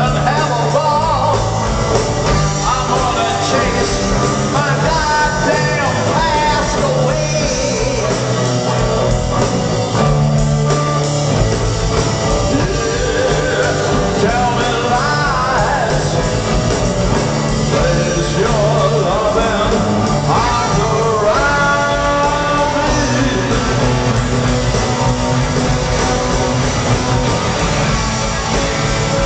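Live rock band playing: a male singer over drums, electric guitar and bass, taken by a small camcorder's microphone from high up in the audience of a large hall.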